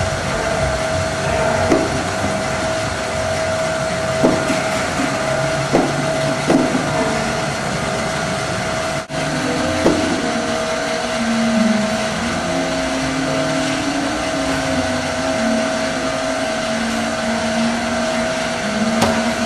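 Steady machine-like whirring with a constant mid-pitched hum and a few soft knocks. After a brief dropout about nine seconds in, a low wavering tone joins.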